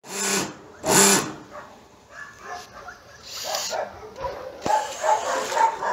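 Dogs barking: two loud barks about a second apart at the start, then quieter, higher-pitched barks and yelps keep coming from about two-thirds of the way in.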